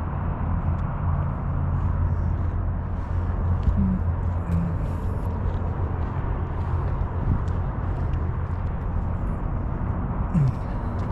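Steady low rumble of vehicle engines, with an even drone that holds without change.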